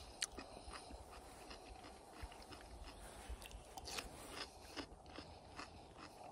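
A person chewing a bite of fresh cucumber: soft, irregular crunches, a few louder than the rest.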